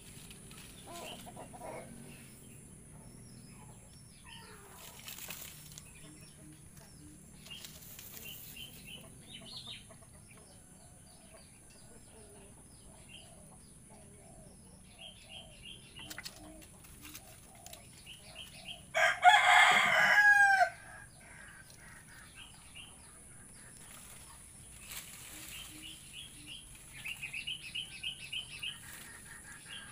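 A rooster crows once, loudly, about two-thirds of the way through, a call of a second and a half that bends down in pitch at its end. Small birds chirp in short repeated trills around it.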